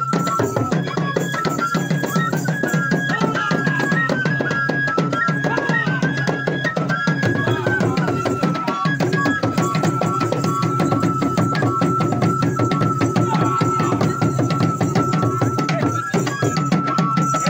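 Kassena traditional dance music: drums beaten in a fast, dense rhythm under a high whistle that steps back and forth between two notes, settling on one repeated note after about seven seconds.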